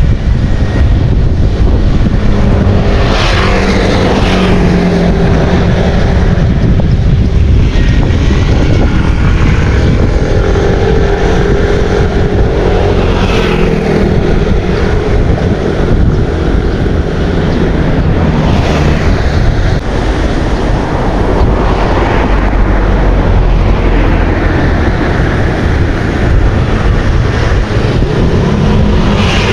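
Loud, steady outdoor rumble of wind buffeting the microphone, with a motor's hum that comes and goes.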